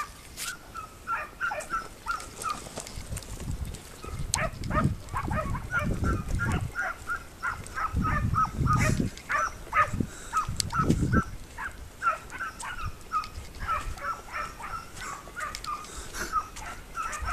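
Hunting dogs barking in the distance: a quick run of short yelping barks, two or three a second, with no let-up. Low rumbling noise swells in the middle stretch.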